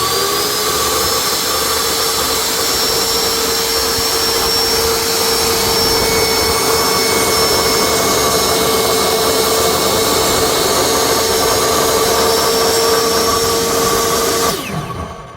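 Table saw motor and blade coming up to speed and running with a steady whine while a small piece of wood is cross-cut. Near the end the saw is switched off and the whine falls away as the blade spins down.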